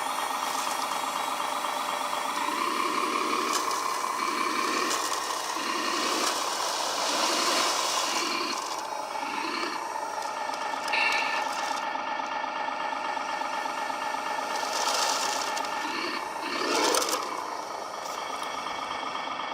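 Radio-controlled construction machines working: a steady whine from their electric motors and gearboxes, with rattling and a run of short pulses. There are a couple of louder surges near the end.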